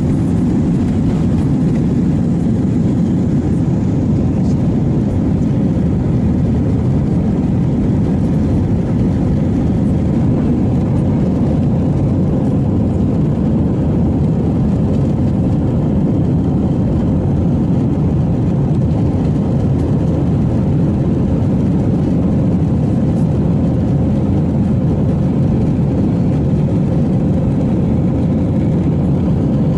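Steady airliner cabin noise heard from a passenger seat soon after takeoff: a constant low rumble of jet engines and rushing air, with a faint steady hum above it.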